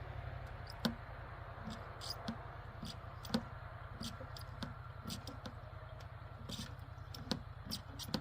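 Irregular small clicks and taps, several a second and uneven in strength, over a steady low hum.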